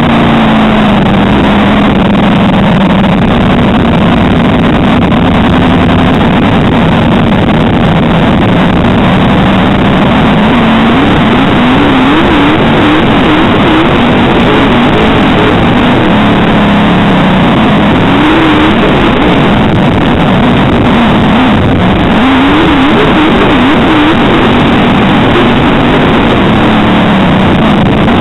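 A dirt modified race car's V8 engine at racing load, heard from on board and very loud. Its pitch drops and climbs again and again as the throttle is lifted for the turns and reopened onto the straights.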